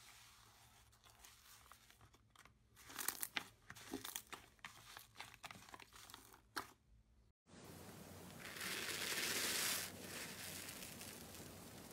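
A hand kneading and squeezing green slime in a plastic bowl, giving a run of sharp pops and crackles. After a brief gap, a hand presses down on crunchy bead-textured slime: a dense crackling for about a second, the loudest part.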